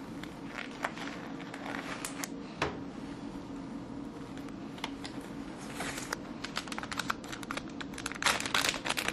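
Nitrile exam gloves being pulled from their box and worked onto the hands: a run of quick snaps and crinkles, densest near the end.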